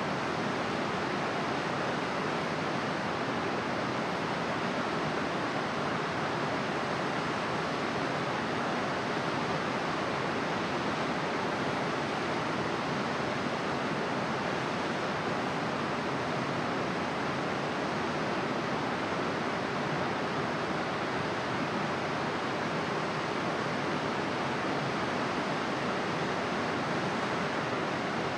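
Steady, even rushing noise of running water, without breaks or changes.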